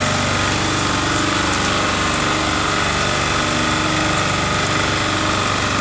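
Engine of a self-propelled modular transporter (SPMT) running steadily, an even mechanical hum with several held tones and no change in speed.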